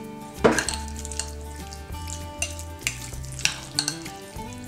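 A metal spoon stirring chunks of baked sweet potato and crushed pineapple in a glass mixing bowl. The spoon clinks against the glass now and then, loudest about half a second in.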